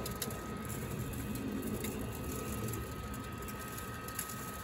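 Weber rotisserie's electric motor running steadily and turning the spit, with a thin steady whine and a few faint clicks.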